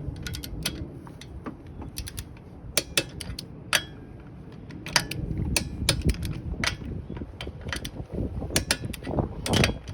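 Torque wrench ratchet clicking in short, irregular runs as the wheel's lug nuts are tightened.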